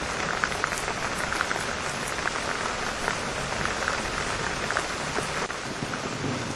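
Heavy rain falling steadily, a dense hiss with many small drop ticks.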